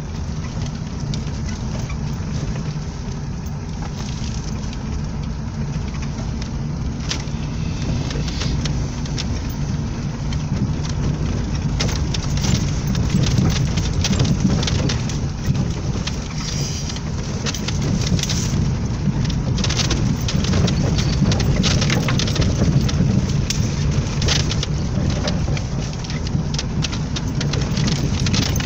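Lada Niva's four-cylinder engine running at low speed, heard from inside the cabin, over many short knocks and crackles from the body, suspension and tyres on a rough, leaf-strewn dirt track. The knocks and crackles come thicker and louder from about twelve seconds in.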